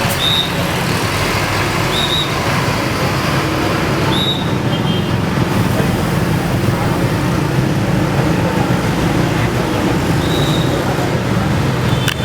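Bus engine running amid steady road traffic noise. Short high-pitched chirps come about every two seconds in the first few seconds and again near the end.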